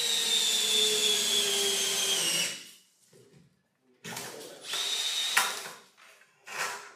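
Power drill running while a ceiling stringer is being installed. One long run with a whine that drops slightly in pitch stops about two and a half seconds in, followed by two shorter runs, one about four seconds in and one near the end.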